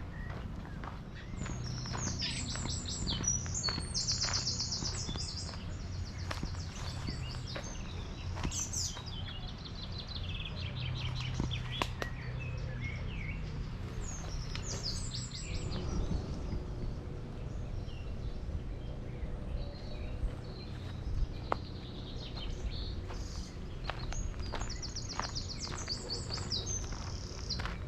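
Songbirds singing fast, high trilled phrases that come back several times, over footsteps and a steady low rumble.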